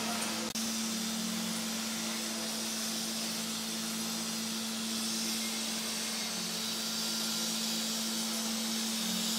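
Handheld gas torch flame hissing steadily as it heats a bronze piece, over a steady low hum, with a sudden break about half a second in.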